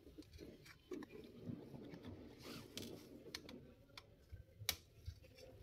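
Faint, scattered small clicks and ticks of hand work on a laptop's plastic case, the sort made while unscrewing and handling its parts; one click a little under five seconds in is the sharpest.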